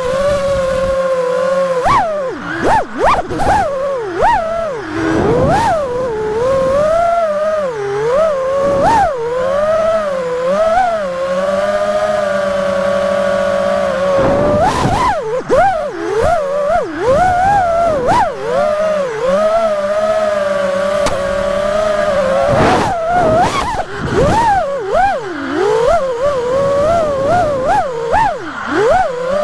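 FPV quadcopter's brushless motors whining, the pitch swooping up and down over and over as the throttle is worked through freestyle moves.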